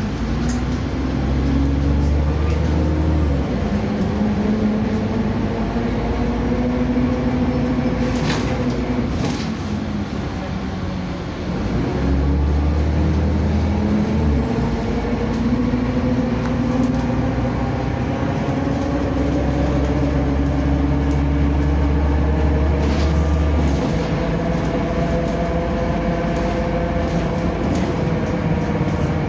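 Stagecoach bus 27253 heard from inside the saloon while it drives: engine and drivetrain pitch climbing as it accelerates, then dropping back several times as it changes gear, over a steady low rumble with a few short rattles.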